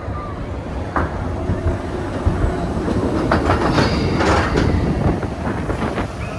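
Roller coaster train rolling along the track, a steady rumble with clattering wheel clacks.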